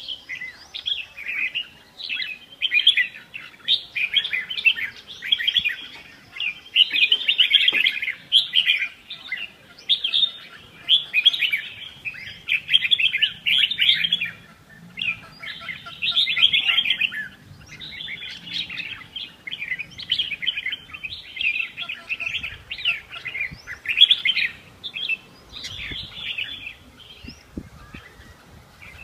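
Birds chirping rapidly and almost without pause, in dense bursts of high chirps.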